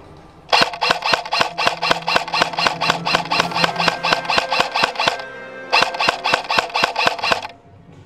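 Airsoft gun firing close by in two long strings of rapid, evenly spaced shots, about five a second. The first string lasts some four seconds; after a short break a second string lasts about a second and a half.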